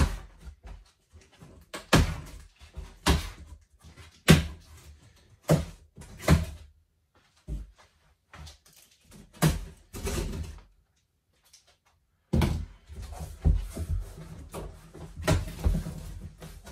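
Cardboard packaging being handled and pulled out of a bicycle shipping box: irregular knocks, thumps and rustling, with a short pause about two-thirds of the way through.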